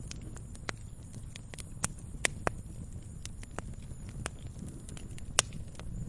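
Wood fire crackling: irregular sharp pops and snaps, a few louder than the rest about two and five seconds in, over a low steady rumble of the burning fire.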